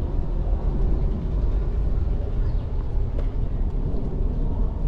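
City street ambience: a steady low rumble of traffic noise with no distinct events.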